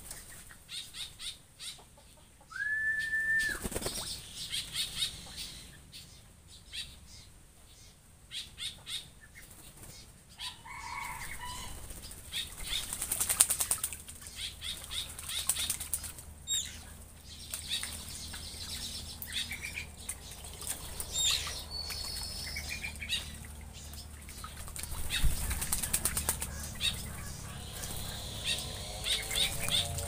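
Black-winged stilts bathing in a shallow pond, splashing and flapping their wings in the water, with short high bird chirps scattered through. A single held whistled note sounds about three seconds in.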